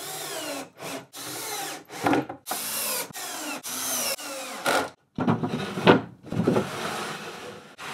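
Cordless drill-driver driving wood screws into a plywood strip in several short bursts, the motor's pitch falling away at the end of each. After that, a wooden drawer slides on its runners with a knock about six seconds in.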